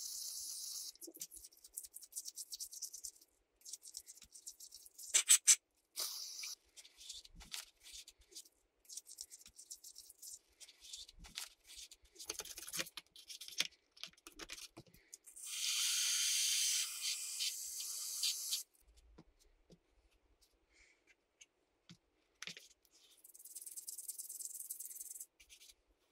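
Small metal parts of an Arrma Kraton 6S center differential clicking and rattling as they are handled and set down on the bench, with the sharpest clicks about five seconds in. A steady hiss lasts about three seconds near the middle.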